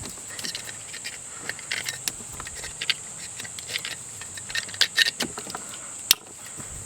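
Plastic wiring-harness connectors being handled and pushed together: a run of small clicks and rattles, with one sharp click about six seconds in.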